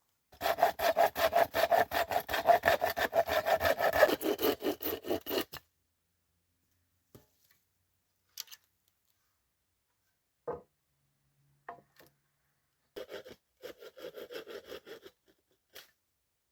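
Hand saw cutting wood in a fast run of back-and-forth strokes for about five seconds, then a few separate knocks, then a shorter burst of sawing near the end.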